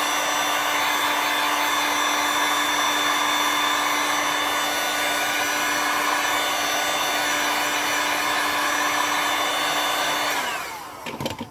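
Small electric heat gun running steadily, its fan motor humming with a high whine, used to warm the phone screen before it is lifted off. Near the end it is switched off and winds down, its pitch falling.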